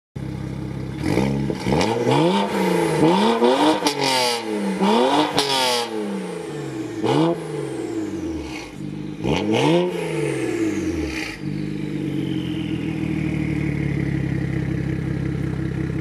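BMW 1 Series engine through a quad-tip exhaust, revved stationary about six times, with a few sharp cracks among the blips, then settling to a steady idle for the last few seconds.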